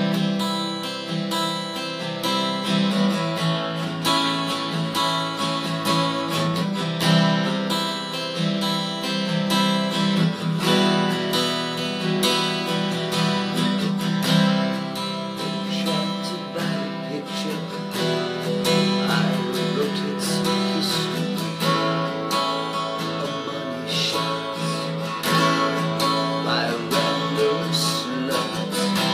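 Acoustic guitar strummed steadily in a song intro, with a man's singing voice joining in during the later part.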